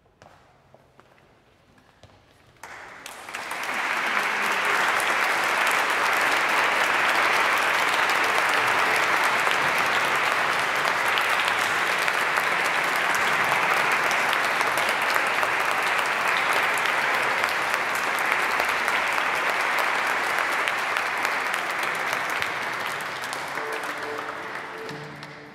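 Audience applauding after a short hush: the clapping starts about two and a half seconds in, swells quickly, holds steady, and fades away near the end.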